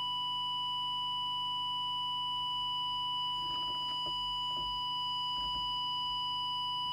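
A steady single-pitch audio test tone, held without a break. It is the signal used to modulate the CB transmitter while its FM deviation is checked and set. A few faint low murmurs or handling noises come through it around the middle.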